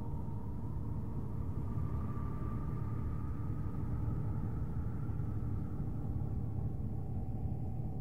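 Voyager spacecraft radio data from Saturn's rings played back as sound: a steady, low, rumbling drone with faint thin tones drifting above it.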